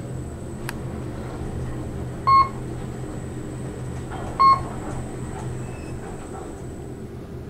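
Two short electronic floor-passing beeps, about two seconds apart, from a traction elevator car as it travels down past floors, over the steady hum of the moving car with a faint high whine.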